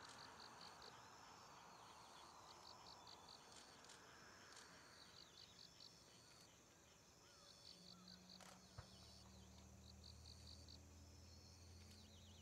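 Faint crickets chirping in short trains of high pulses, repeating a little over once a second. A low steady hum comes in about two-thirds of the way through.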